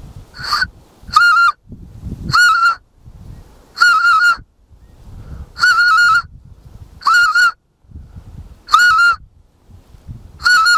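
Homemade goose call made from a soda-siphon gas cartridge, blown eight times in a steady rhythm about every second and a half. Each call is a short, even, whistling honk imitating a white-fronted goose.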